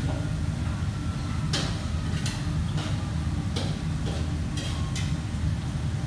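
Steady low machinery hum with irregular sharp ticks, about one or two a second.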